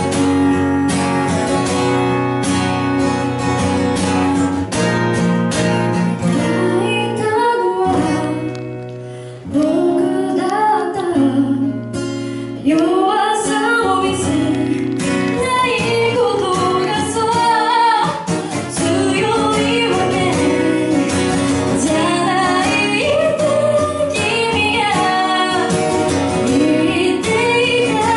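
Acoustic guitar strumming chords alone, then a woman's singing voice comes in about nine seconds in over the guitar accompaniment: a live voice-and-guitar song.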